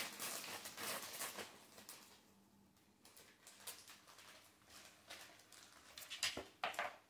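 Faint patter and scuffing of dogs moving on a wooden floor, with a few sharper clicks near the end.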